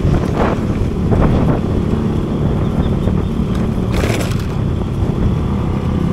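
Small motorcycle engine running at a steady cruise, with wind buffeting the handlebar-mounted microphone. Short surges of noise come about half a second in, just after a second, and about four seconds in.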